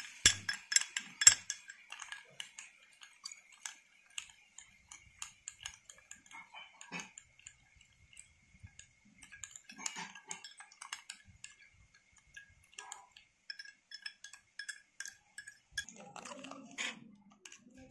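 A spoon clicking and scraping irregularly against a small glass bowl as instant coffee, sugar and water are beaten into a thick paste.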